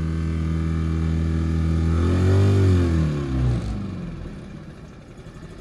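Tohatsu 6 hp Sail Pro four-stroke outboard running steadily, revving up briefly about two seconds in, then its pitch drops and it winds down and stops about four seconds in.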